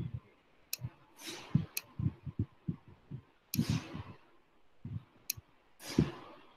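Soft, irregular thumps and a few sharp clicks close to a computer microphone, with three breaths, while handwriting is drawn on a computer whiteboard with a pen or mouse.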